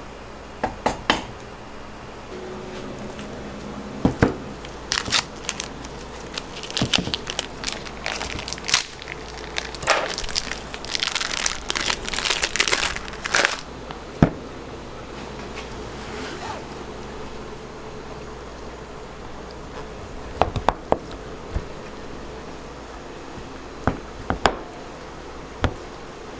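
Kitchen handling sounds: sharp knocks and clicks, with a stretch of crinkling and crackling from about five to thirteen seconds in. Near the end come a few scattered knocks as hard Grana Padano cheese is handled and cut on a plastic cutting board.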